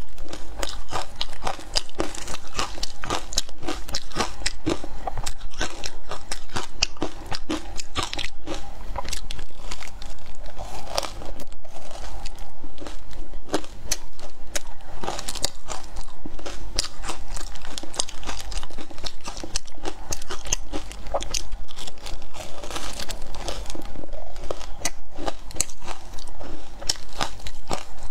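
Ice coated in matcha powder being bitten and chewed close to the microphone: a dense, continuous run of crisp crunches and crackles.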